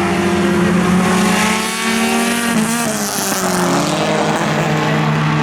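Four-cylinder dirt track race cars running together under power, several engine notes at once, shifting in pitch about halfway through as the cars pass.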